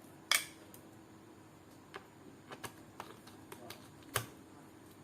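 Sharp clicks and light taps from handling a laptop's bottom casing and its screws during reassembly: one loud click about a third of a second in, a scatter of lighter ticks, then another click just after four seconds.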